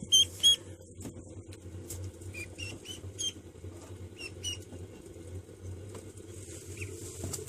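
Downy yellow baby bird giving short, high peeps, a quick cluster right at the start and scattered single peeps after that.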